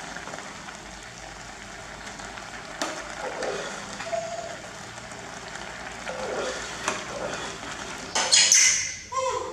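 Vegetable rice porridge simmering and bubbling in a saucepan on a portable gas stove, with a metal ladle stirring it and knocking against the pan a few times. About eight seconds in, a louder, harsher sound lasts about a second.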